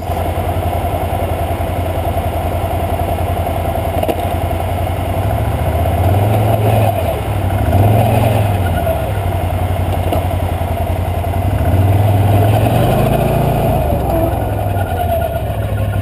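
Can-Am Outlander 650 XMR ATV's V-twin engine running on a rough trail, revving up twice, about six seconds in and again about twelve seconds in, before settling back.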